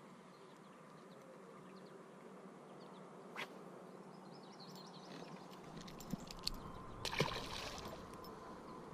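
Quiet outdoor ambience with a faint steady hum. There is a single click about three and a half seconds in, and a cluster of clicks and rustling around seven seconds in, which is the loudest part.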